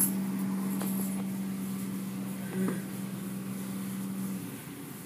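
Automatic car wash equipment running, with foam pouring from the overhead applicator: a steady machine hum over a wash of running liquid, the hum cutting off about four and a half seconds in.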